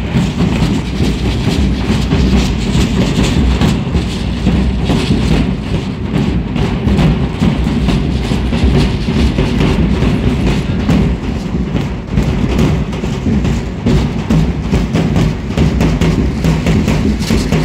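Several large drums beaten steadily for a street dance, with dancers' hand rattles shaking along.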